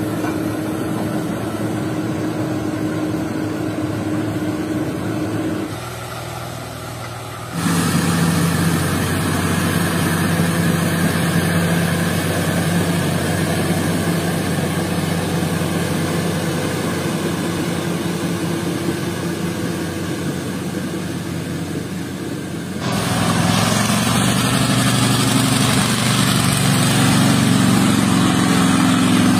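Heavy diesel engines of logging machinery running steadily, heard as several edited clips: the sound changes abruptly about 6, 8 and 23 s in, and is loudest from about 23 s on.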